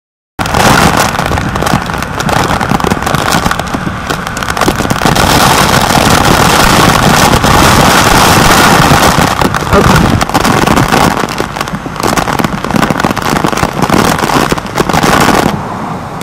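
Tropical-storm wind and heavy rain beating on a camera in a waterproof housing: a dense, loud crackle of raindrops striking the housing over a rush of wind noise. About a second before the end it drops to a quieter, duller rush.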